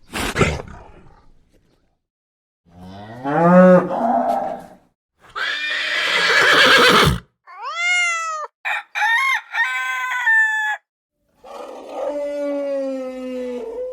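A string of separate animal calls with short silences between: a rising call, a harsh noisy blast, a high call that rises and falls, a quick run of short calls, and a lower, held call near the end.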